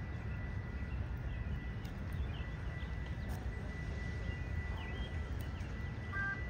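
Outdoor background noise: a steady low rumble with a few faint bird-like chirps and a thin, steady high-pitched tone.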